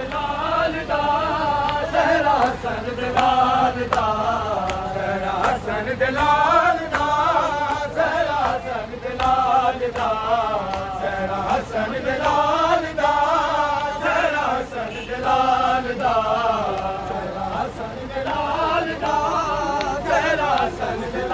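Crowd of men chanting a noha, a Shia lament, in unison, the refrain rising and falling in phrases, with sharp slaps of matam (chest-beating) in the mix.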